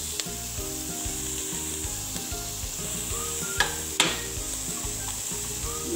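Chopped capsicum, carrot and egg sizzling in a steel pan as they are stir-fried with a perforated steel spoon, with two sharp knocks of the spoon against the pan a little past halfway.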